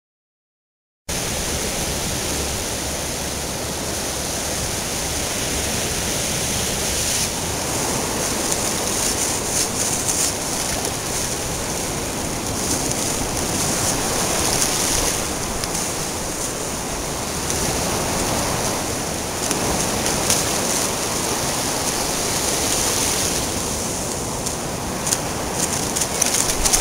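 Surf washing onto a sandy beach: a steady rush of waves that starts abruptly about a second in, after silence.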